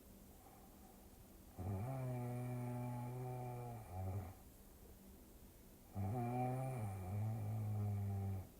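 Snoring: two long snores of about two and a half seconds each, a few seconds apart, each a low, steady buzz.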